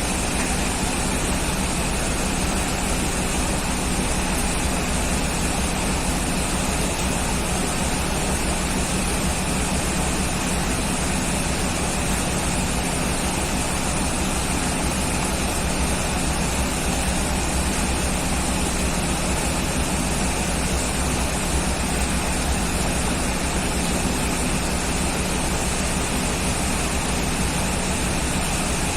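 Steady rain: an even, unbroken hiss with a low rumble beneath it and no sudden claps.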